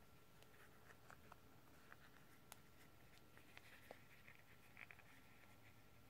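Near silence with faint scattered clicks and soft rustling: hands handling a crocheted doll head and plastic safety eyes, setting the eyes between the stitches.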